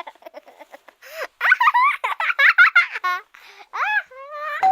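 A high-pitched voice giggling and squealing, with short quick bursts at first and then longer swooping squeals that rise and fall in pitch.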